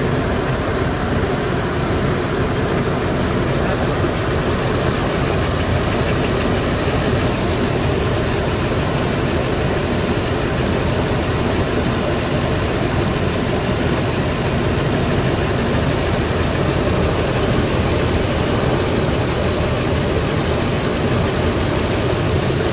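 GM 8.1-litre Vortec V8 idling steadily, heard close up in the open engine bay. It has just been restarted after the valve cover and plug wires were refitted, and the owner judges that it sounds good.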